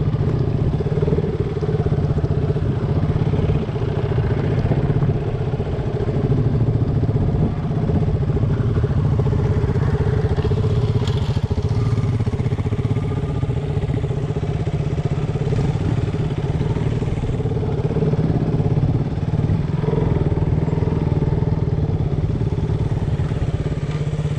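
Motorcycle engine running steadily and loudly, holding an even pitch with no revving.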